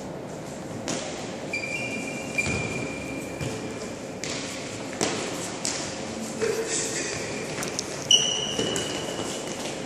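Futsal ball thumped by kicks and shoes squeaking on a wooden indoor court, with the echo of a large hall. A long squeak runs from about a second and a half in, and a sharp kick about eight seconds in is followed by more squeaks; a few faint shouts lie under it.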